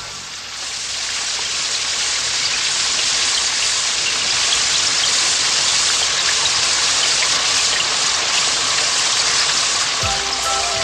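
Heavy rain falling as a steady hissing downpour. It swells over the first couple of seconds and then holds; music comes back in near the end.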